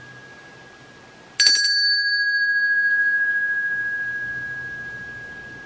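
Small handheld metal call bell struck once about a second and a half in, then ringing on in a long, slowly fading tone. Before the strike, the tail of an earlier ring is dying away. It is being rung as a summons for help.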